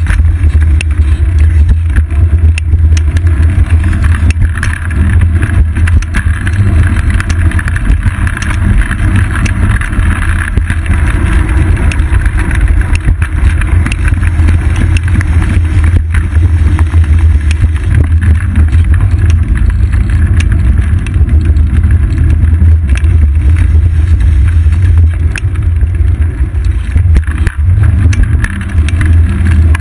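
Steady, loud low rumble of wind buffeting and ride vibration picked up by a seat-post-mounted GoPro Hero 2 in its housing on a moving bicycle, with road traffic from the adjacent roadway mixed in.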